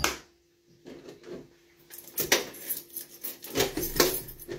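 Metallic clicks and rattles of an apartment front door's lock and handle as the door is worked open, several sharp clicks with the loudest about two, three and a half and four seconds in.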